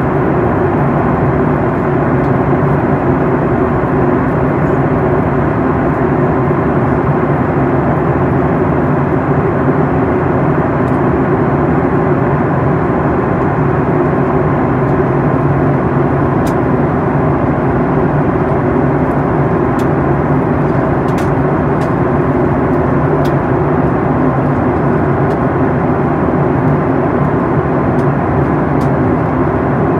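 Steady in-flight noise inside a Boeing 737 MAX 8 in descent: the even drone of its CFM LEAP-1B turbofan engines mixed with the rush of air past the fuselage.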